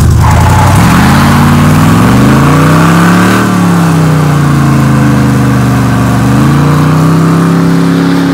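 Square-body Chevy 3/4-ton pickup's engine revving as the truck drives off, the pitch climbing for about three seconds, easing down, then climbing again and holding near the end.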